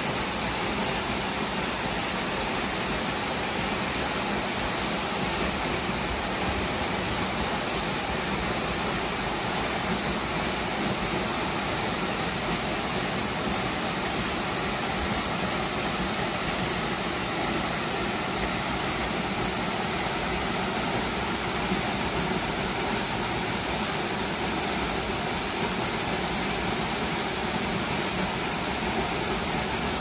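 Waterfall pouring onto rock, a steady, even rush of water.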